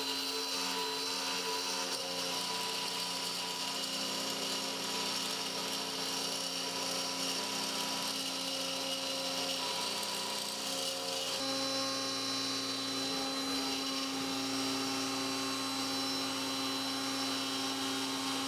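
X-Carve CNC router at work: the spindle runs steadily while the end mill cuts a groove through Tasmanian oak, with the whine of the stepper motors driving the gantry. The set of tones changes about eleven seconds in as the machine changes its move.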